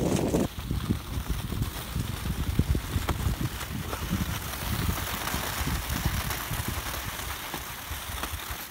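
Skis gliding and swishing on a groomed snow track, with irregular low thumps of wind and handling noise on the microphone.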